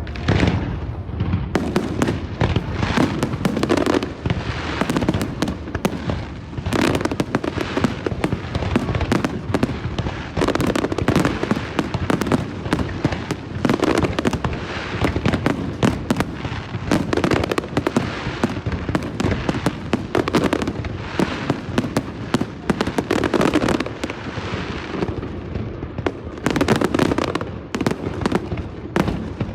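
Fireworks display going off without pause: a dense run of bangs and crackling, with deeper booming shell bursts every few seconds.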